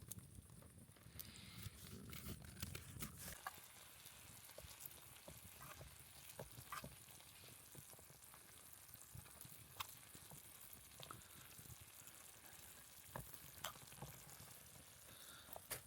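Faint campfire crackling and sizzling: scattered sharp pops over a soft hiss.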